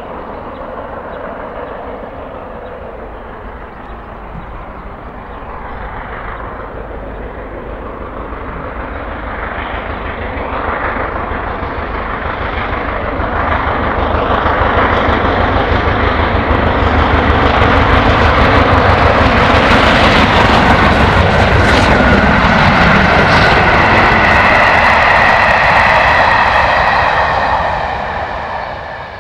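GWR Castle class 4-6-0 steam locomotive 5043 Earl of Mount Edgcumbe approaching and passing at speed with its train: exhaust and running noise build steadily to a peak, with several steady high tones ringing together in the last few seconds, then cut off near the end.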